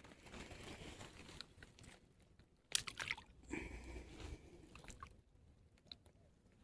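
Faint rustling and crunching handling noise, with a short cluster of sharp clicks and crackles about three seconds in.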